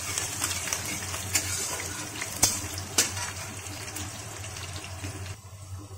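Chopped garlic and nigella seeds sizzling in hot oil in a metal kadai, stirred with a steel spatula that knocks against the pan a few times. The sizzle fades near the end as the garlic finishes lightly frying.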